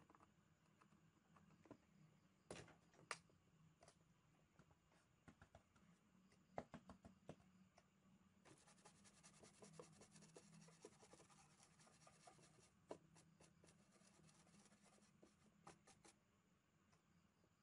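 Faint scratching and scattered light clicks of a small tool scraping corrosion from an ECU circuit board, turning to a quick run of fine scraping strokes about halfway through.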